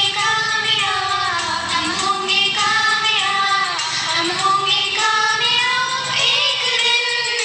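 A woman's voice singing a slow prayer song in a high, held melody over a musical accompaniment.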